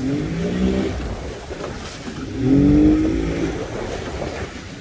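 A motorboat engine speeds up twice, its pitch rising each time, over steady wind and water rumble.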